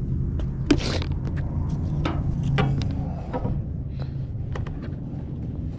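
A short spritz from a spray bottle of detailer about a second in, then light clicks and rubbing as a towel works over the truck's body. A steady low rumble runs underneath.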